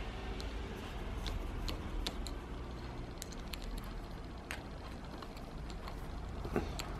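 Small, irregular metal clicks and ticks of a screwdriver working the screws of a brake master cylinder reservoir cover, over a low steady hum.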